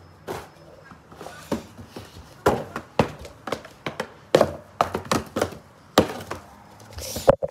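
An irregular run of about a dozen sharp knocks and thuds, a few louder than the rest, spaced unevenly a fraction of a second apart.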